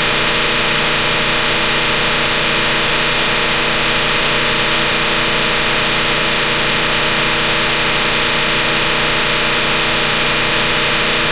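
A loud, steady machine noise with a strong hiss and a fixed hum, unchanging throughout.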